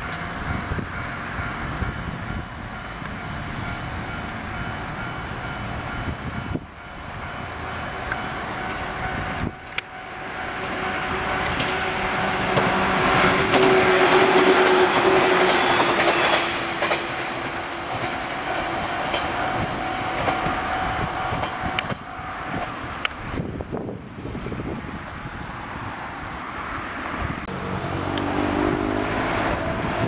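A level-crossing warning bell ringing steadily as an electric train rolls past, the train's running noise swelling to its loudest about halfway through. The bell stops about two-thirds of the way in, and a low rising whine comes in near the end.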